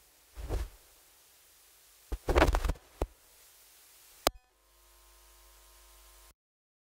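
A few short knocks and rustles, the loudest about two seconds in, and a sharp click a little after four seconds. A faint steady hum follows and cuts off into dead silence near the end.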